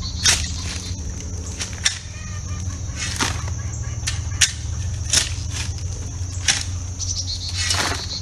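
Shovel scraping and crunching into loose gravel, a short stroke about every second, over a steady high insect drone and a low hum.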